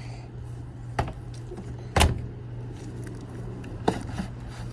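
Three sharp knocks from parts being handled during a washing-machine teardown, the loudest about two seconds in, over a steady low hum.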